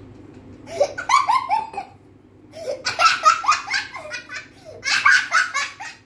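A young boy laughing hard in three bouts of rapid, breathy giggles.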